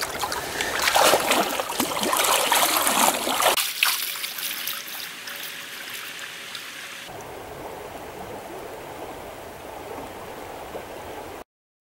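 Trout stream water running and splashing, loud with sharp splashes for the first few seconds, then an abrupt cut to a quieter, steady rush of flowing water.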